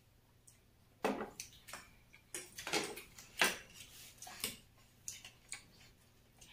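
Close-up eating sounds: forks clicking and scraping on ceramic plates, with noodles being slurped, irregular and starting about a second in.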